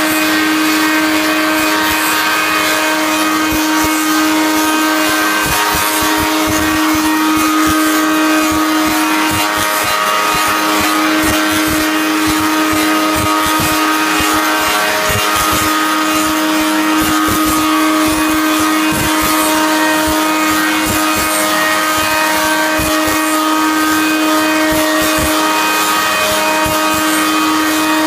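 Copy lathe running and cutting several square ash blanks into round froe handles at once. A steady machine hum with one strong tone sits under the hiss of wood being cut and chips thrown, with irregular low knocks throughout.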